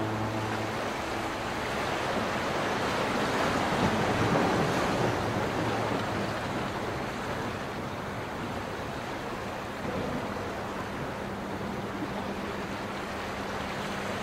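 Sea ambience of waves washing, swelling about four seconds in and easing off. The tail of a ship's horn dies away at the start, and a faint low steady horn tone comes back in about three quarters of the way through.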